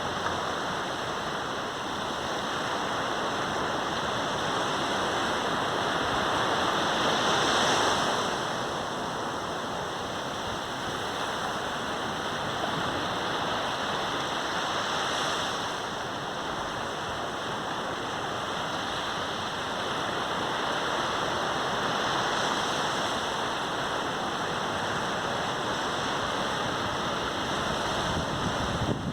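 Sea waves washing onto a beach: a steady rush of surf that swells each time a wave breaks, about every seven or eight seconds.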